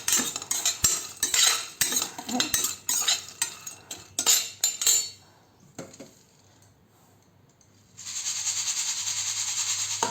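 Metal spoon scraping and clinking against a pan as whole spices are stirred while dry-roasting, for about five seconds. After a short quiet pause, a steady hiss starts about eight seconds in and runs to the end.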